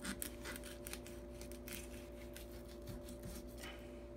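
Fillet knife cutting along the backbone of a black drum, the blade giving faint, irregular clicks and scrapes as it slides over the bones.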